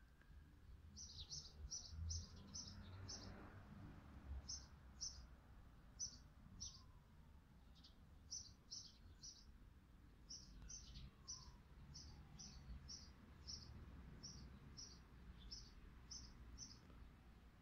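Faint chirping of a small bird: short, high notes repeated about twice a second in runs, over a low rumble.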